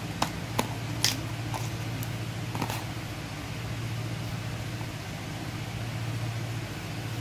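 Steady low hum with a few light clicks and taps in the first three seconds, the loudest about a second in, from hands handling a plush fabric pot holder on a tabletop.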